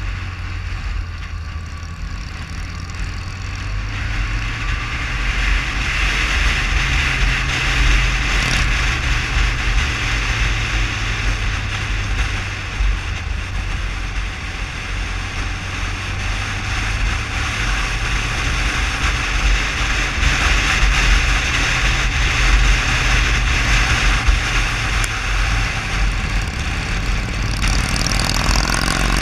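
Motorcycle riding at road speed, heard from the rider's on-board camera: the engine running steadily under a heavy rush of wind over the microphone, swelling and easing through the curves. Near the end a rising tone sets in.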